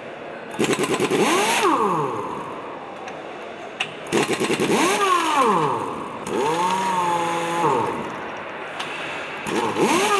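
Heavy pneumatic impact wrench run in four short bursts, hammering fast as it drives bolts into a V8 engine block; its pitch falls away at the end of each burst.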